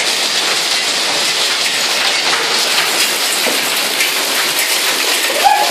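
Hailstones and rain pouring down onto concrete, a steady dense patter of countless small hits.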